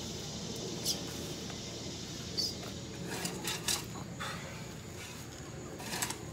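A long-handled garden tool scraping and dragging through loose compost and wood-chip litter: several short scraping rustles, some close together about three seconds in.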